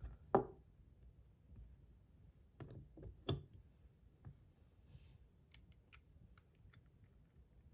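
Scattered clicks and light taps from a tungsten fidget spinner and its buttons being handled, with a few sharper clicks in the first half and lighter ticks later.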